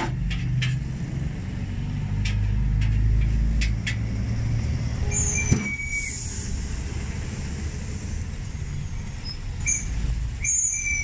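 Street traffic: a heavy road vehicle's engine rumbling past, with brief high squeals about five seconds in and again near the end.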